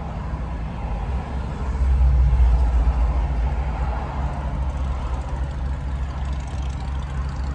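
Car interior noise while driving: a steady low engine and road rumble, swelling slightly about two seconds in.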